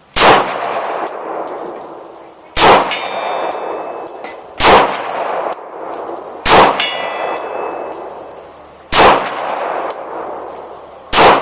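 Glock 19 9mm pistol fired six times at an uneven pace, about two seconds apart, each shot trailing off in an echo. After the second and fourth shots a steel plate target rings with a high tone from being hit.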